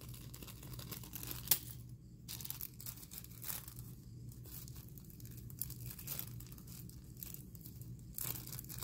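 A plastic snap package crinkling and rustling as small plastic snap parts are picked out of it by hand, with one sharp click about one and a half seconds in.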